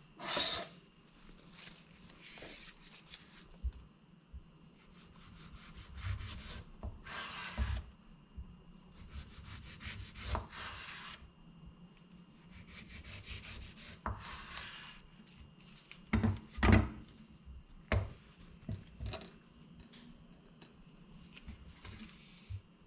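Chef's knife sawing through a tomato in repeated strokes and knocking against a bamboo cutting board, with scrapes and rubs as slices are handled. A cluster of sharper, louder knocks on the board comes a little past the middle.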